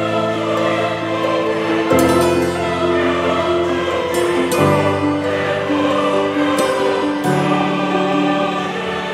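Background music: slow, sustained chords that change every two to three seconds.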